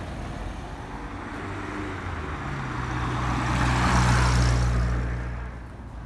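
A motor vehicle passing by: its engine and tyre noise swell to their loudest about four seconds in, then fade.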